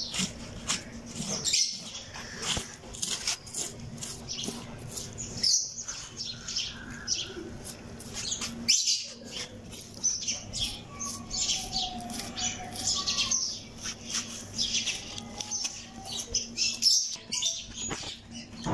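Small birds chirping busily, many short high chirps in quick succession.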